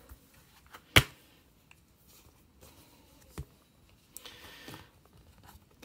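Clear plastic Blu-ray case snapping open with one sharp click about a second in, followed by a few faint taps and a short rustle of the plastic case being handled.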